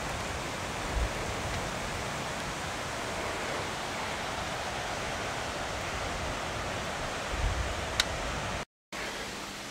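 Steady rushing hiss of floodwater running down a normally dry rambla (a dry gully) after a heavy rainstorm. A couple of low thumps hit the microphone, and the sound cuts out for a moment near the end.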